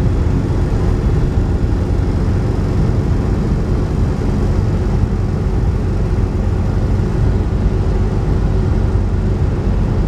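Steady drone of the 1956 Standard 8's small 803 cc engine with road noise, the car driving along at an even speed without revving up or down.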